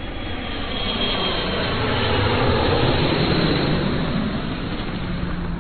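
Jet aircraft engine noise used as an intro sound effect: a steady rushing noise that swells over the first couple of seconds and then eases off slightly.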